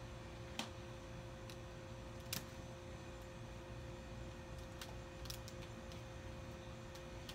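Quiet steady hum carrying two faint held tones, with a few light handling clicks, the sharpest about half a second and about two seconds in.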